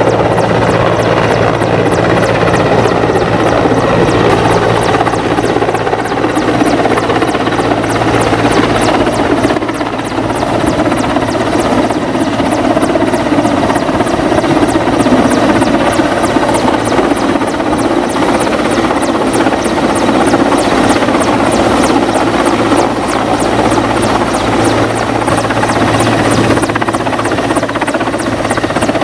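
Mi-17 military transport helicopter flying low overhead: a loud, steady rush of rotor and turbine noise with a fast, even rotor chop.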